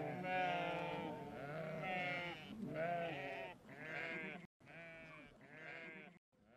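Several sheep bleating in overlapping, quavering calls. The sound cuts out abruptly twice in the second half.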